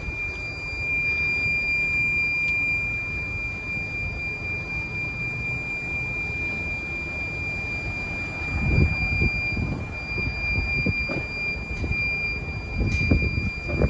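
Wind buffeting the microphone, a steady low rumble that gusts harder about two-thirds of the way through and again near the end, with a thin steady high tone underneath throughout.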